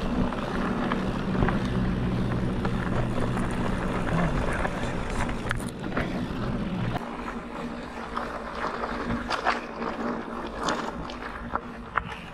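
Mountain bike rolling down a dry dirt trail: tyres on dirt and loose stones with small clicks and rattles from the bike, over a steady low drone that drops away about seven seconds in.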